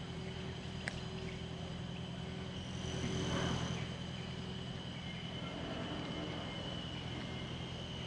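Steady low outdoor hum with a faint high steady tone over it, a single sharp click about a second in, and a brief louder swell of noise around three seconds in.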